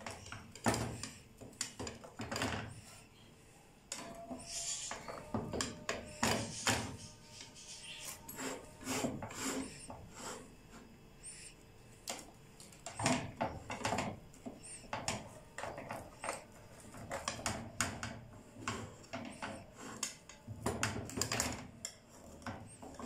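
Pizza-wheel cutter rolling through baked pizza crust and scraping on the metal pizza pan: a run of irregular crunching and scraping strokes, with a brief lull a few seconds in.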